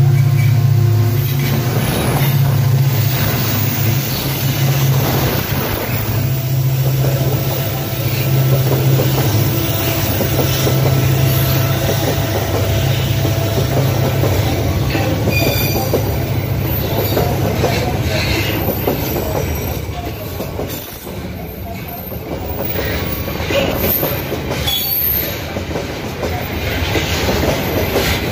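Heavy Babaranjang coal train passing close by: the diesel locomotive's low engine drone first, then the loaded coal wagons rolling past with wheels clacking over the rail joints. The wheels squeal at moments on the sharp curve while the train brakes hard for the downhill bend.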